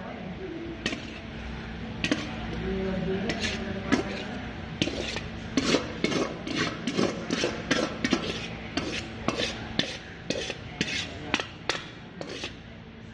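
Metal spoon scraping and clinking against the inside of a metal pan as cooked filling is scraped out into a ceramic bowl: a quick, irregular run of scrapes and clinks, busiest in the middle and latter part.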